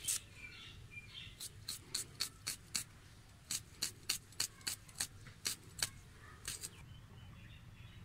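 Crisp cutting strokes of a red onion being drawn by hand through an upright boti blade, in quick runs of slices at about four a second, with a short pause about three seconds in.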